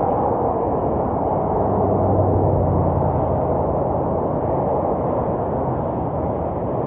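Steady rumble of highway traffic, swelling with a low hum as a vehicle passes about two seconds in.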